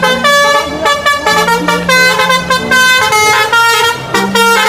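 Multi-tone 'telolet' bus air horn playing a quick tune, one note after another without a break.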